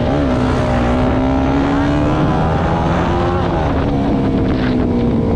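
Motorcycle engine running under way. Its pitch climbs steadily as it accelerates, drops about two seconds in and again a second or so later as it changes up a gear, then eases down slightly.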